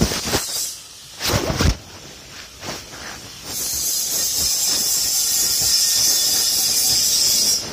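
A few knocks in the first three seconds, then a steady high hiss of a grinder working on steel from about three and a half seconds in, cutting off just before the end.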